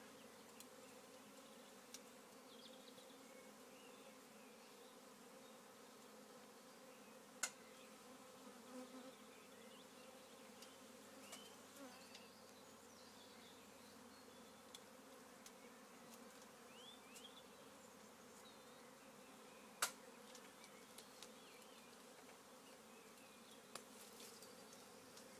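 Faint, steady buzzing hum of a honeybee swarm, with two sharp clicks about seven and twenty seconds in.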